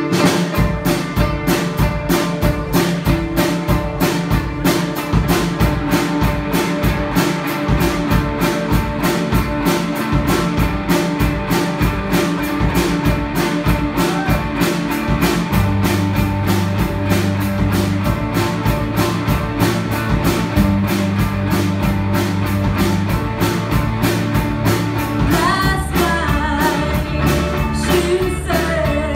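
Live rock band playing: a drum kit keeping a steady, fast beat of about four hits a second under electric guitars and a bass guitar. A woman's singing comes in near the end.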